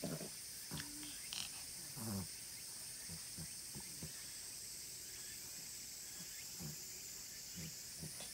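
Small black Pomeranian sniffing and snuffling around: a run of short, soft huffs, the strongest near the start and about two seconds in, over a steady high-pitched hiss.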